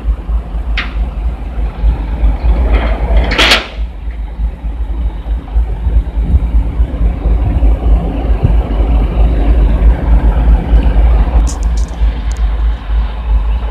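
Heavy self-loader truck's diesel engine running steadily with a deep rumble, with a few knocks on top, the loudest about three and a half seconds in and light clicks near the end.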